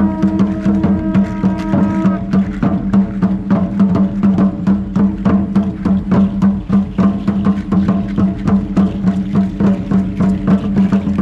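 Traditional dance music: a steady droning held tone under a fast, even run of sharp wooden knocks, about three a second, that starts right at the beginning.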